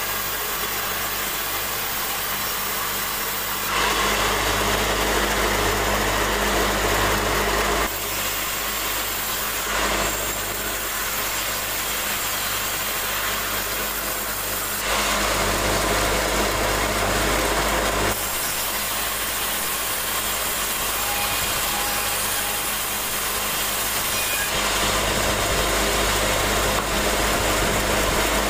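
Band saw running steadily and cutting planks: several louder, hissing stretches of a few seconds each, where the blade is in the wood, alternate with the steadier hum of the machine between cuts.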